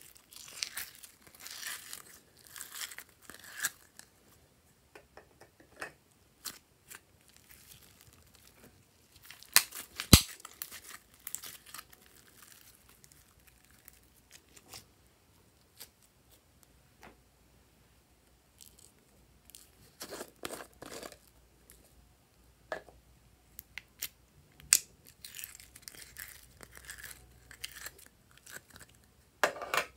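Fingers pressing into and pulling glossy glitter slime out of its tub: sticky crackles and small pops in scattered bursts with quiet gaps between, and one sharp click about ten seconds in.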